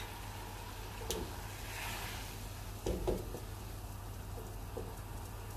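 Tea water boiling in a saucepan, bubbling steadily at a full boil with black tea leaves and green cardamom in it, with a couple of brief faint knocks about one and three seconds in.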